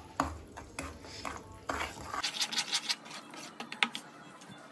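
Slotted steel spatula scraping against a steel pan as ground moong dal in ghee is stirred for halwa: a rapid series of short scrapes.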